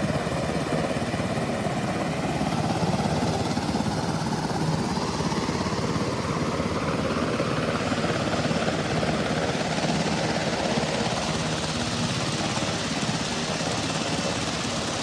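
Black Hawk rescue helicopter running close by, its turbines and rotor making a loud, steady noise. A whine slowly falls in pitch through the middle.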